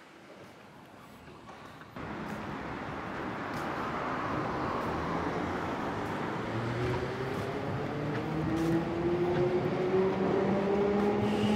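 Street tram running and picking up speed, its electric motor giving a slowly rising whine over a rumble of running noise. The noise jumps louder suddenly about two seconds in.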